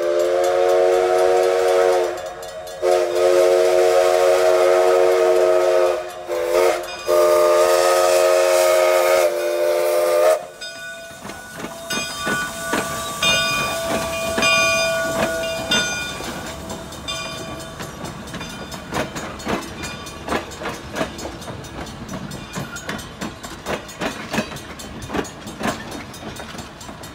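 Chime steam whistle of the ex-McCloud River Railroad Alco 2-6-2 steam locomotive sounding the grade-crossing signal: long, long, short, long, each blast a chord of several tones. After that the passing train's wheels click steadily.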